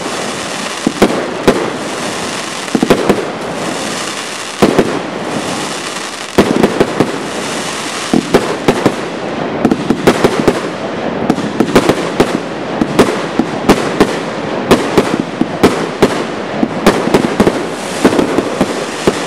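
Aerial fireworks firing shot after shot: many sharp bangs, several a second, over a continuous crackling hiss from the bursting stars.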